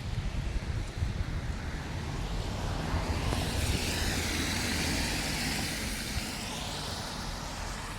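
A car passing on a wet road: the hiss of its tyres swells from about three seconds in and fades away near the end, over a low rumble.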